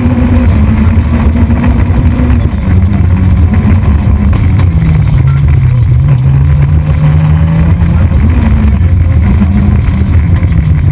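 Renault Clio rally car's four-cylinder engine heard from inside the cabin, pulling hard at high revs. The revs drop about two seconds in, then the engine runs at a lower pitch with a few short rises.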